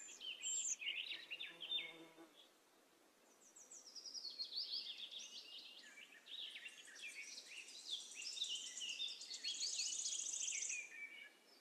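Faint birdsong: several short chirps and rapid high trills, with a brief pause about two seconds in.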